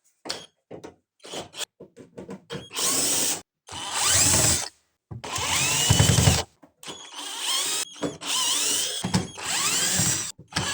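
Power drill-driver running in several short bursts of about a second each, its whine rising and falling, with small clicks between runs: screws being driven out to open a diesel heater's casing.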